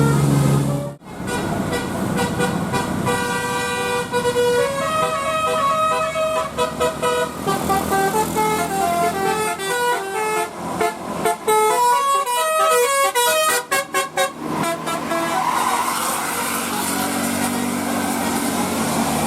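Bus 'telolet' horn, a multi-tone air horn, playing a tune of held notes that step up and down in pitch, with a fast run of short stabbed notes midway. Near the end the notes give way to a noisier wash of sound.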